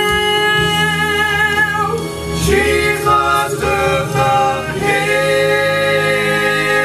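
Male vocal trio singing a gospel song in close harmony through handheld microphones and a PA. They hold a long chord, sing a short passage of moving notes in the middle, then settle on another long held chord.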